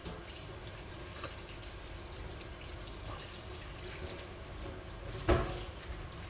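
Gas stove burner running under a frying pan of heating cooking oil, a steady low rush with faint ticks. A single loud knock comes about five seconds in.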